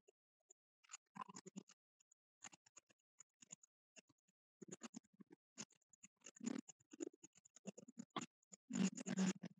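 Faint, irregular scratchy clicks and rustles, sparse at first and coming thicker near the end.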